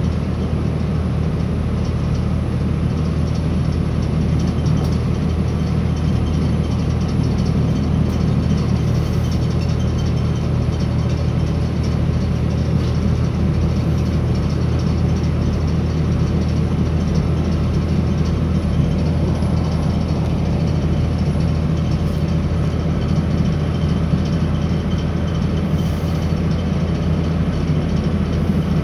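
Steady running noise inside a Northern Ireland Railways CAF Class 3000 diesel multiple unit at speed: a low, even drone with rail noise over it, unchanging throughout.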